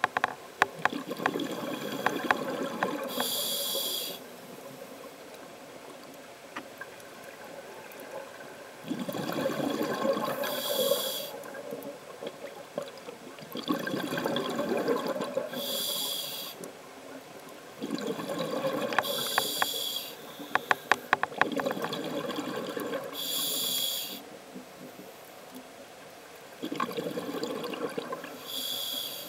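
Scuba diver breathing through a regulator underwater, heard close. About every five seconds there is a short hissing inhale, then a bubbling, crackling rush of exhaled bubbles lasting a couple of seconds.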